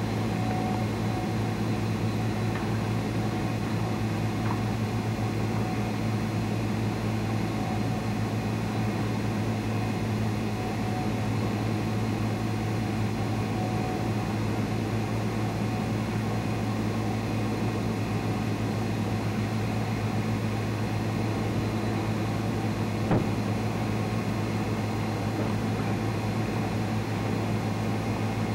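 Steady, unchanging drone of a tractor-drawn manure boom tank rig running while its boom reaches into a tanker truck, with one brief click about 23 seconds in.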